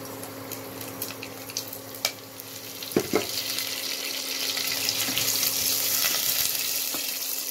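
Hot oil sizzling in a stainless-steel pot as curry leaves and dried red chillies go into a tempering of mustard seeds and split dals. A couple of knocks about three seconds in, after which the sizzle grows louder, and a wooden spatula stirs near the end, over a steady low hum.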